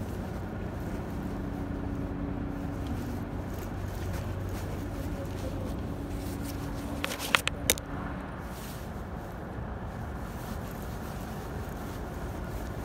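Steady low rumble of distant engine noise with a faint hum that comes and goes, and a quick cluster of three or four sharp clicks a little after seven seconds in.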